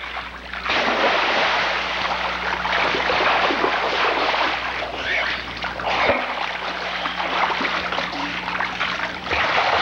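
Swimming-pool water splashing and sloshing continuously as a small child wades through it.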